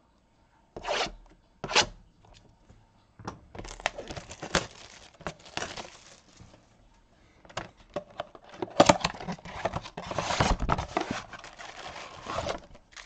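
Plastic shrink-wrap being torn and crinkled off a sealed baseball-card hobby box, and the box opened. Two short rips come in the first two seconds, then a long stretch of crackling, with the loudest tearing about nine and ten seconds in.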